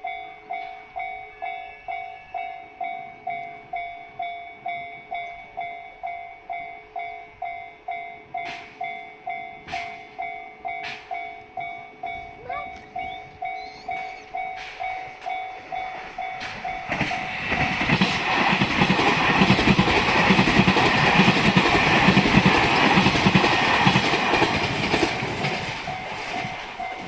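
Japanese level-crossing warning bell ringing the 'kan-kan' alarm at an even pace of about two strikes a second. About sixteen seconds in, a train passes over the crossing; its running noise and wheel rumble swell over the bell and fade again near the end.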